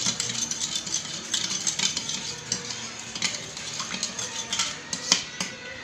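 A spoon stirring yeast, sugar and warm water in a bowl: quick, irregular clinks and scrapes against the bowl as the yeast mixture is mixed.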